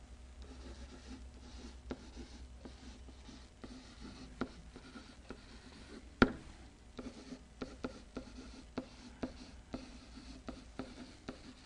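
A pen writing on an interactive whiteboard, faint scratchy strokes and light taps as words are handwritten, with one sharp tap about six seconds in.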